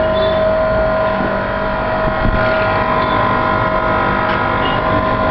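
Soda machine running with a steady mechanical hum carrying several held tones, with one light knock about two seconds in.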